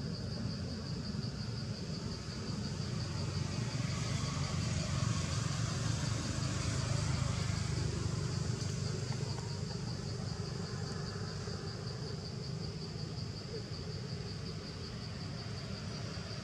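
Steady insect trill, a high, rapidly pulsing buzz that never lets up, over a low, steady background rumble.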